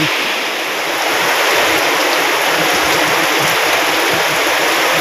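Heavy rain pouring down, a loud, steady hiss of a downpour.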